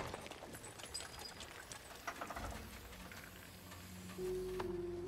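Film sound after a blast: a fading hiss with scattered small knocks and clicks. About four seconds in, a steady low musical drone comes in and holds.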